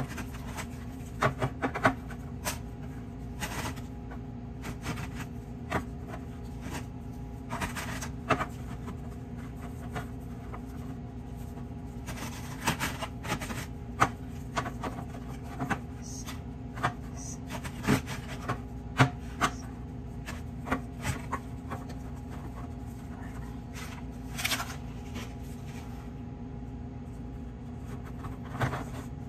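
Ladyfinger biscuits being set down one by one in a stainless steel pan: scattered light taps and knocks on the metal and against each other, over a steady low hum.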